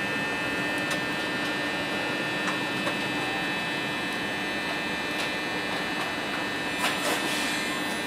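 Alstom Citadis Dualis tram standing at the platform, its onboard electrical equipment giving a steady hum of several held tones, with a few light clicks.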